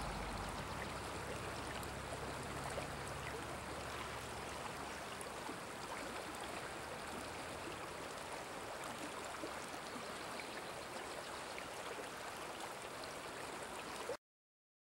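A shallow river flowing over rocks, with a steady rushing of water. It cuts off suddenly near the end.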